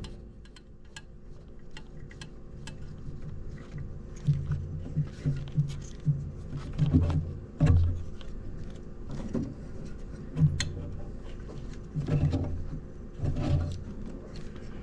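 Bolts being threaded in by hand on an engine's VVT solenoid: scattered light metallic clicks and clinks, with a run of dull low thumps from handling and knocks against the engine.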